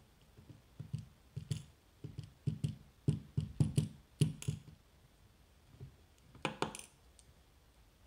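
Steel tweezers and small brass lock pins clicking and tapping against the brass cylinder and an aluminium pinning tray while an Assa Twin V-10 lock cylinder is taken apart. There is a run of quick light clicks for a few seconds from about one second in, then a brief metallic clatter a little later.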